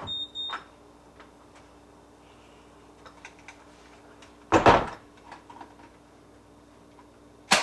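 A door being opened and shut: latch and handle clicks, then a short, louder noise about four and a half seconds in and a sharp click near the end, over a faint steady hum.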